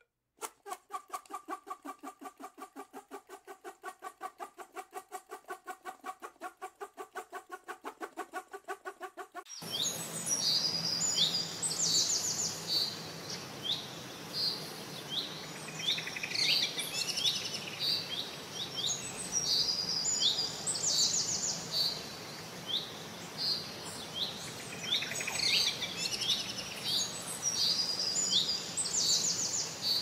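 A rapid, even pulsing call at about six pulses a second for the first nine seconds. It cuts off abruptly and gives way to many short, high, falling bird chirps over a steady background hiss.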